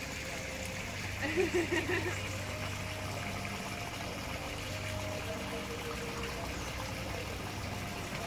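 Water trickling steadily over a low, steady hum, with a short louder wavering sound a little over a second in.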